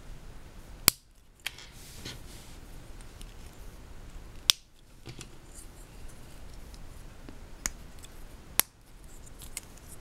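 Small Lego pieces snapping onto studs as the kitty's feet are pressed on: about five sharp, short clicks, the loudest near one second in, halfway through and near the end.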